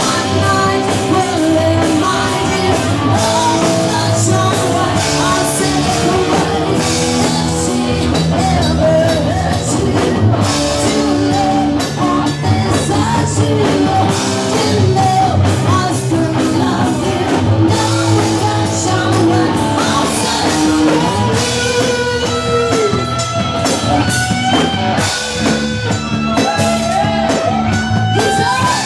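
Live rock band playing loudly: electric guitar, bass guitar and drum kit, with singing over them.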